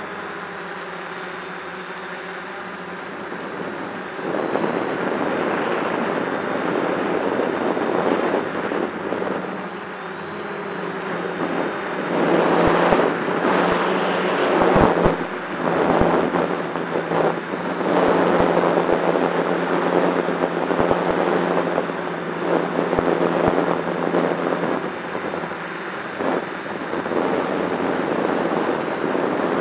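DJI F550 hexacopter's six electric motors and propellers running in flight with a steady hum, mixed with wind buffeting the onboard camera's microphone. The noise gets louder about four seconds in, and gusty surges with low thumps come and go through the middle.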